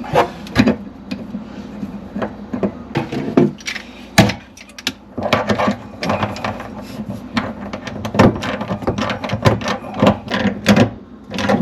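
Irregular clicks, knocks and clatter of hand tools and metal and plastic parts being handled while fitting a faucet.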